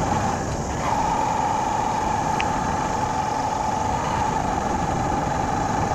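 Motorcycle engine running steadily while riding along a road, with a continuous engine hum over an even rush of wind and road noise.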